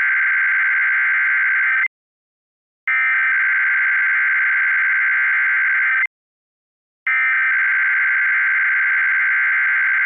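Emergency Alert System SAME header: the buzzy digital data tones of the test's header sent three times, each burst about three seconds long with a second's gap between them, marking the start of a Required Weekly Test.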